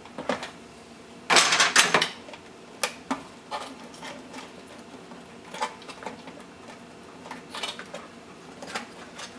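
Hands shifting an e-bike battery pack and its wiring inside the frame: scattered plastic clicks and rustles, with a louder stretch of rustling and scraping about a second and a half in.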